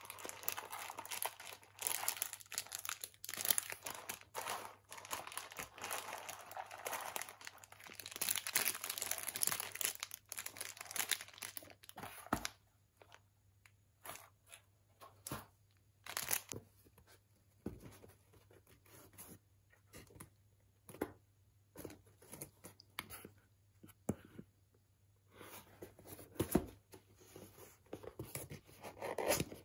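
Packaging rustling and crinkling as hands rummage through wood-chip filler in a cardboard box and handle cookies in clear plastic bags. The rustling is dense for about the first twelve seconds. After that there are only scattered light taps and crinkles, and rustling picks up again near the end.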